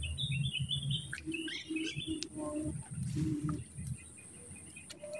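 Small birds chirping in rapid runs of high notes, with a lower call repeating in quick pulses in the middle and a couple of sharp clicks.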